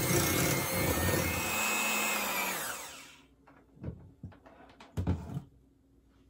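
Electric hand mixer running, beating softened cream cheese in a glass bowl, then switched off and winding down with a falling hum about two to three seconds in. A few soft knocks follow.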